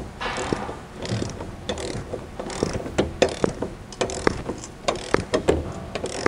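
Socket ratchet wrench clicking in short back-and-forth strokes, tightening the blade bolt of a Cub Cadet CC999ES mower; irregular runs of sharp clicks.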